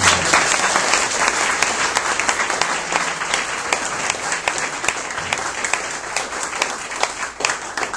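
Audience applauding and clapping in a hall, loudest at the start and easing off a little toward the end.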